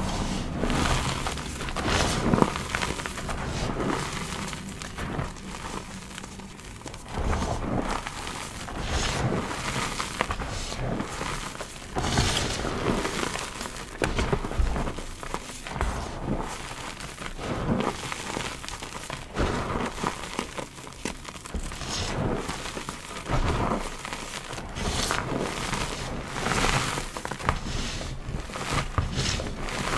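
Hands crushing and squeezing loose gym chalk powder: irregular soft crunches and crumbling, one after another with short pauses.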